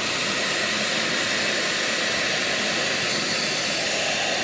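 Ikonic professional hair dryer running steadily, with an even rush of blown air at a constant level.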